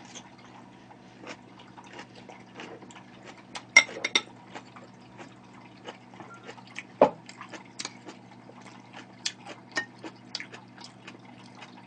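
Close-up eating sounds: wet chewing and mouth clicks over a faint steady hum, with a few louder knocks, about four and seven seconds in.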